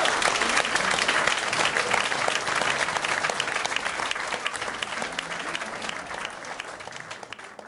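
Audience applauding after a live Dixieland jazz number ends, a dense patter of many hands clapping that dies away gradually toward the end.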